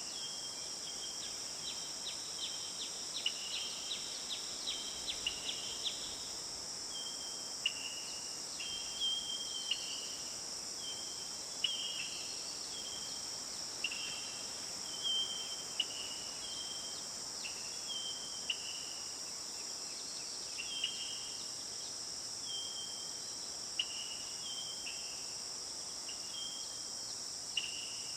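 A steady, high chorus of crickets and other insects. Over it, short chirping calls repeat roughly once a second, each a brief note that often steps down to a lower one.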